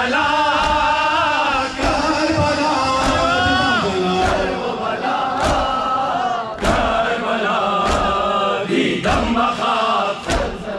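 Male reciters sing a Persian (Hazaragi) noha lament about Karbala through a loudspeaker, with a large crowd of men chanting along. Sharp strikes of the crowd's chest-beating matam land in a regular beat about every second and a bit.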